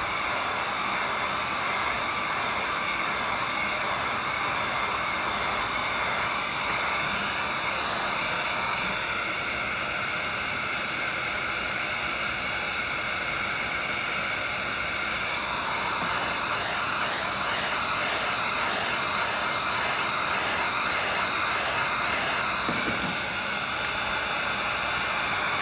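Heat gun running steadily, a constant rush of air with a faint motor whine, blowing hot air onto a freshly coated tumbler to dry and set the coat.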